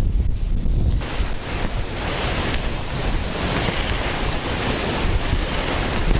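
Wind blowing across the microphone: a low buffeting rumble that changes about a second in to a steady, even hiss.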